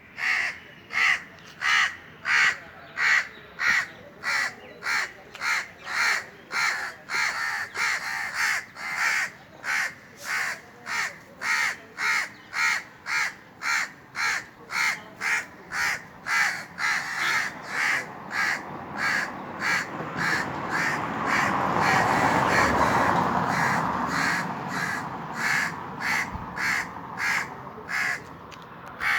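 Indian crows cawing in a steady run of short, evenly spaced caws, about three every two seconds. Past the middle, a broad rushing noise swells for a few seconds and fades, briefly the loudest sound, with the caws still going over it.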